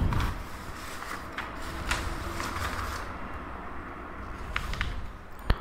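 Paper sheets handled and slid across a notebook: rustling and rubbing, with a few small clicks and one sharp click near the end.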